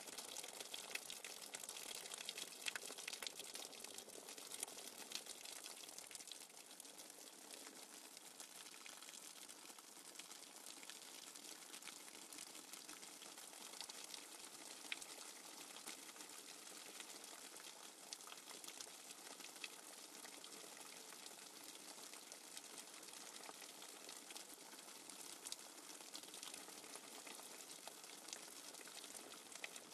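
Faint nature-sounds background of running, bubbling water: a steady hiss with fine crackles throughout.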